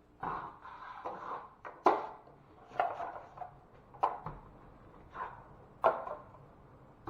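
A hand tool working on drywall: a series of short scraping strokes, about one a second, each starting sharply and fading quickly.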